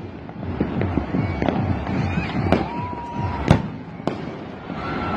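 Many fireworks and firecrackers going off across a city: a dense crackle of small bangs with scattered louder booms, the loudest about three and a half seconds in. A few short whistling tones cut through the crackle.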